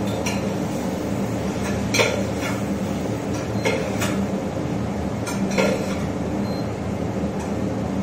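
A metal spoon clinking and scraping against a pot as frying food is stirred, with several sharp clinks in the first six seconds. Under it runs the steady hum of a kitchen chimney's exhaust fan.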